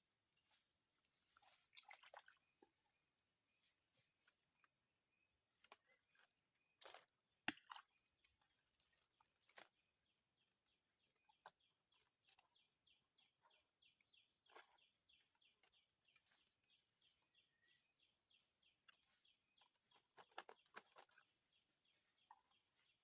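Faint outdoor ambience with a steady high insect drone and scattered soft clicks and knocks. A run of quick, even ticks, about three a second, comes in over several seconds in the middle.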